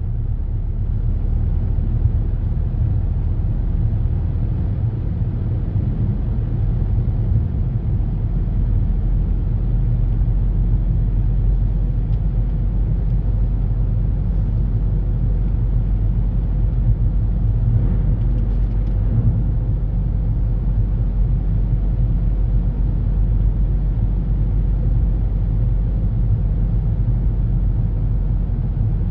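Car interior noise while driving on a snow-covered road: a steady low rumble of engine and tyres heard from inside the cabin.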